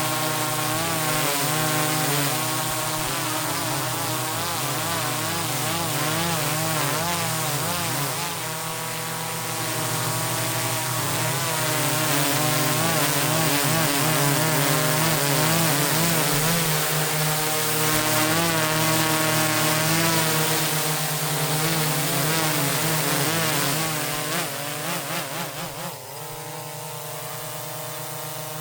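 DJI Matrice 4T drone's motors and propellers running, several tones wavering and beating against one another. About 25 seconds in the sound wavers and drops to a lower, steadier level. The owner reports a strange metallic noise from the drone that gets worse when it rotates.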